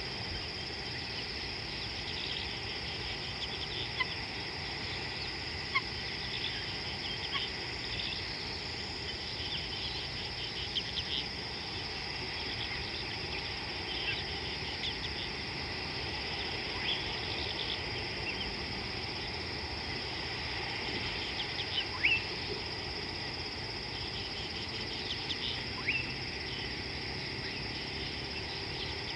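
Steady, high-pitched drone of an insect chorus, with many short bird chirps scattered through it and a few louder, sharper bird calls, the loudest about 22 seconds in.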